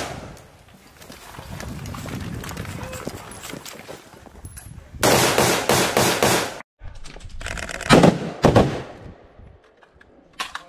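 Rifle fire from AR-pattern carbines. Just past the middle comes a rapid string of shots lasting about a second and a half, and near the end two louder single shots about half a second apart.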